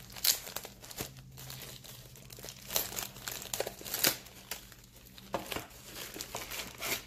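Clear plastic packaging bag crinkling and rustling in the hands as it is worked open, in irregular handling with a few sharper crackles.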